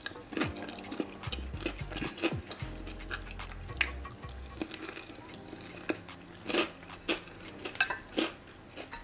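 Eating utensils clinking and scraping against a plate in short, irregular clicks, the sharpest about midway and near the end.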